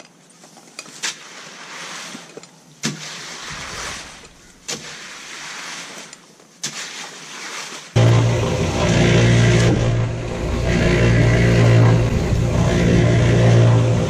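Quiet scraping with a few sharp knocks. Then, about eight seconds in, a small electric cement mixer comes in suddenly, running with a loud, steady hum as its drum turns.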